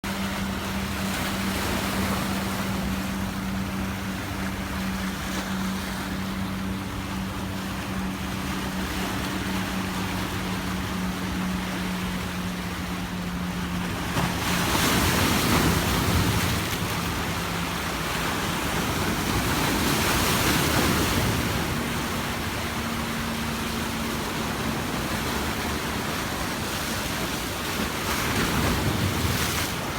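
Sea waves washing onto a beach, the surf swelling louder about halfway through, again a few seconds later, and near the end. A steady low hum runs under the first half and fades out.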